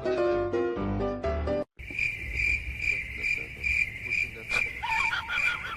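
Piano music stops abruptly at a cut. Crickets then chirp in a steady pulsing rhythm, about two pulses a second. A single click and a few short, faint calls come near the end.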